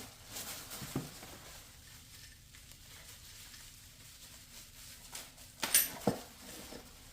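Accessories and their packaging being handled and rustled while unboxing, with a sharp knock about a second in and a louder cluster of knocks and rustles just before six seconds in.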